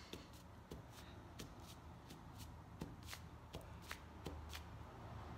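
Light, irregular dabbing taps, about three a second, as paint is pressed by hand onto a cotton tote bag laid over newspaper, with a faint rustle of the paper.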